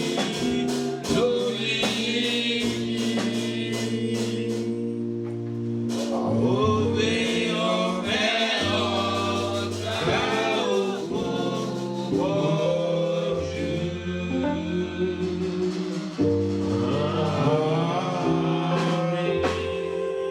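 Gospel music: voices singing over sustained keyboard chords and bass, with a steady beat of percussion strokes.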